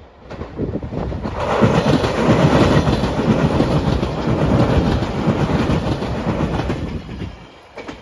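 Five-car Anpanman-liveried limited express electric train passing close by on ballasted track. The sound builds over the first second or two, stays loud for several seconds, then drops away near the end.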